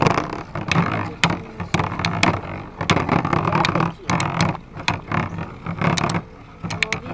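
Two Beyblade spinning tops, Hell Kerbecs and Tornado Eagle, whirring and clashing in battle, with many sharp clicks and knocks as they hit each other.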